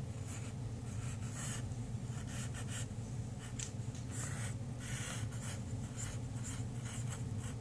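Wooden pencil scratching on paper in a string of short, irregular sketching strokes, over a steady low hum.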